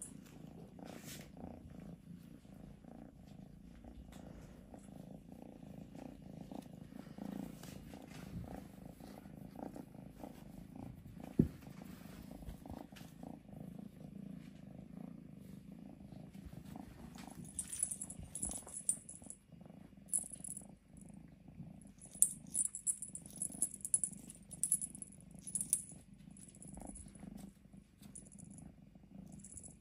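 Scottish Straight kitten purring, a steady low rumble. From about halfway on, short bursts of high rustling and crackling come and go over the purr.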